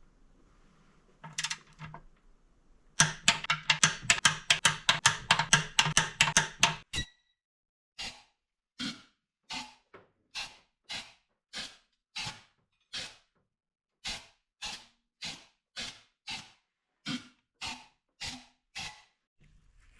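Ratchet wrench clicking while tightening intake manifold fasteners: a fast run of clicks for about four seconds, then slower single clicks about one and a half a second.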